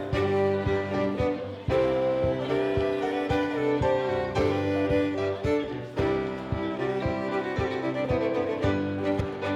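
Live contra dance band music: a fiddle plays the lead tune over a steady, driving beat.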